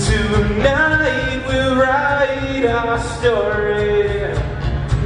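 Live rock band playing: drums and bass under a melody line of long held notes that slide between pitches, dropping out briefly near the middle.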